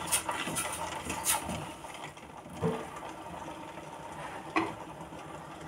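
Wooden spoon stirring sugar and water in a steel bowl, with a few light knocks of the spoon against the metal, over a faint steady hum.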